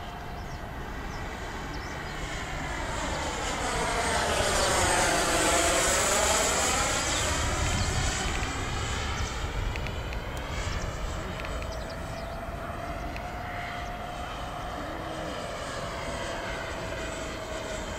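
Twin-turbofan F-15 jet fighter flying past: the jet noise builds to its loudest about five to seven seconds in, with a sweeping, phasing swoosh as it passes, then eases off into a steady engine whine that slowly drops in pitch.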